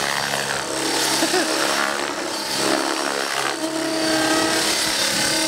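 Radio-controlled aerobatic helicopter flying low passes, its rotor and motor whine shifting up and down in pitch as it manoeuvres.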